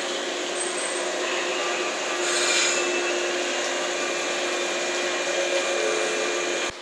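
JR West 115-series electric train rolling slowly through a station: steady wheel-on-rail and running noise, with a brief hiss about two seconds in. The sound cuts off suddenly near the end.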